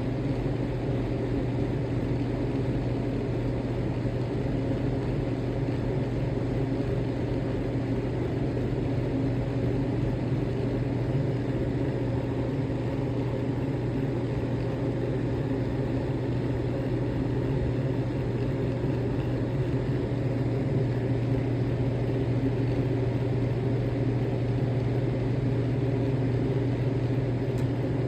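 A steady low mechanical hum that runs without a break or change, with no burps or farts heard.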